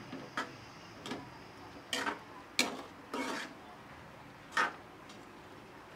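A metal ladle stirring chicken in boiling adobo sauce in a metal wok, clacking and scraping against the pan about six times at uneven intervals, the loudest knock a little past halfway.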